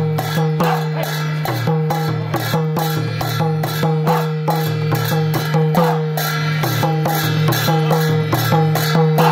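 Music with plucked string notes and a steady drum beat of about two and a half strokes a second over a sustained low drone.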